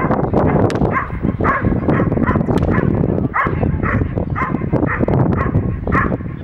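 A dog barking repeatedly, about two barks a second, as it lunges on its leash at a bite pillow in bite-work training. Wind rumbles on the microphone underneath.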